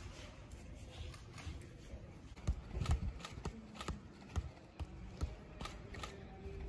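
A football being juggled on the foot: light taps of the ball on the boot, about two a second, starting a couple of seconds in.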